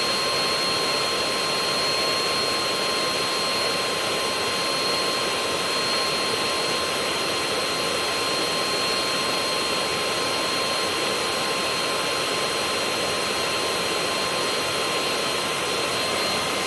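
VacLife VL732 cordless stick vacuum's brushless motor running steadily on high power: a rushing airflow hiss with a steady high-pitched motor whine.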